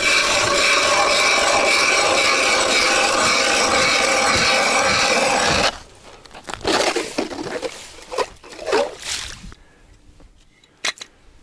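Ice auger boring through river ice, a steady even grinding that stops abruptly a little over halfway through as the hole is finished. Then short scrapes and knocks as the ice chips are cleared from around the hole.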